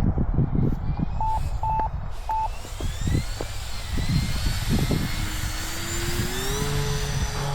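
Brushless electric motor and propeller of an E-flite Turbo Timber Evolution RC plane whining, its pitch climbing steadily from about two and a half seconds in as the throttle is opened, over a heavy low thumping rumble. Three short electronic beeps sound in the first two and a half seconds.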